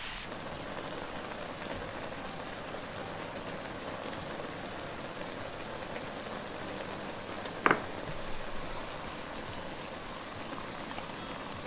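Sliced button mushrooms sizzling steadily as they fry in butter and oil in a pan, with one short, sharp tap about two-thirds of the way through.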